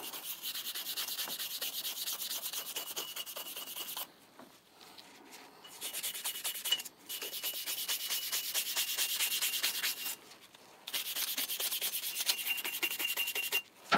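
A small brush scrubbed rapidly back and forth over a steel cold chisel, buffing in a pencil-graphite finish meant to protect it from rust. Three spells of fast rubbing strokes, with short pauses about four and ten seconds in.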